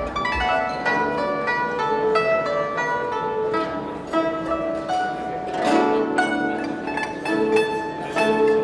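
Instrumental music on a plucked string instrument: a quick, continuous run of ringing plucked notes carrying a melody, with a brief fuller strum a little past the middle.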